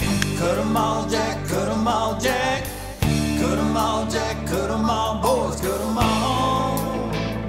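Background music: a song with singing over instruments and a held bass note that changes about every three seconds.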